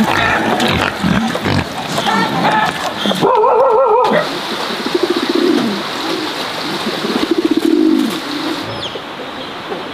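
Small black pigs grunting, with a short wavering squeal about three seconds in. Then, from about five seconds in, pigeons cooing in low pulsed calls, with faint high bird chirps near the end.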